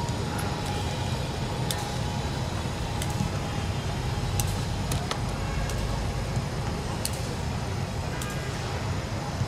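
Footballs being kicked at and caught or punched by goalkeepers: several sharp, separate thuds over a steady low outdoor rumble.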